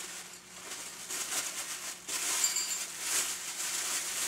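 Thin plastic bag crinkling and rustling in irregular spurts as hands pull it open to unwrap something, louder from about two seconds in.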